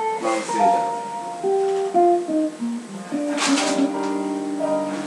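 Guitar music: a melody of single plucked notes stepping up and down in pitch, with a short burst like a strummed chord about three and a half seconds in.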